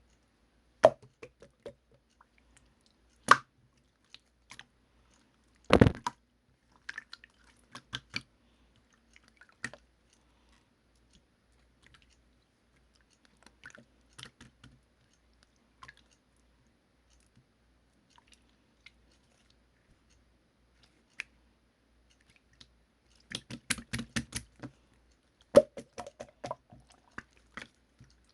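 Slime being squeezed and poked by hand, giving scattered sharp pops and clicks with wet squishes between them. Near the end comes a quick run of crackling pops.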